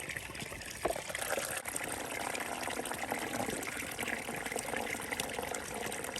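Water streaming and trickling as a bottle of spring water is squeezed through a screw-on water filter, with a brief knock about a second in.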